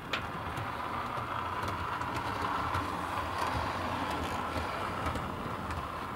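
Two-car model train running along the track, its small electric motor giving a steady whirr, with occasional light clicks.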